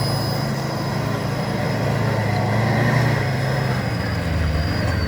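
Mahindra Scorpio's turbo-diesel engine running, with the steady high-pitched whistle of an aftermarket turbo-whistle exhaust tip over it. Near the end the engine note drops and the whistle dips and stops.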